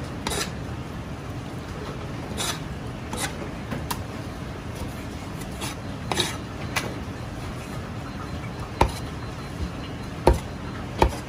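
Steady commercial-kitchen background noise with scattered light clatter, and a few sharp knocks, the loudest three in the last few seconds.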